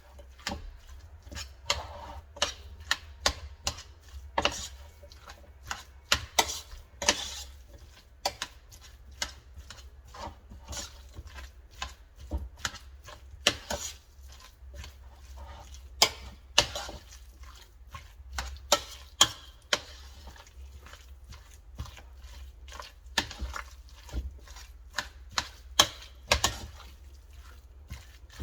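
A utensil mixing a thick mayonnaise chicken salad in a bowl: irregular clinks and knocks against the bowl, several in quick succession at times.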